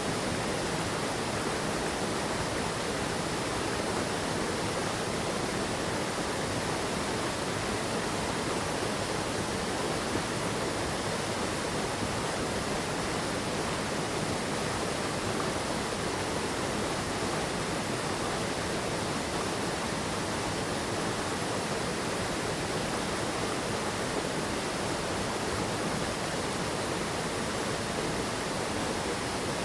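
Mountain stream water rushing over rocks and falls, a steady, unchanging wash of noise.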